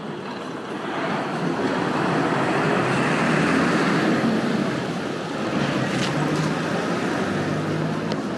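Road traffic noise: a vehicle passing on the road, swelling to a peak about three to four seconds in and easing off into a steady roadway hum.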